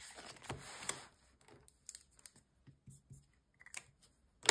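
Soft rustling as a paper banknote is slid into a clear plastic wallet pocket, followed by scattered faint clicks and taps of handling, with one sharper click near the end.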